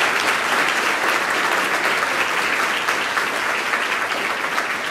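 Audience applauding, a steady clapping of many hands.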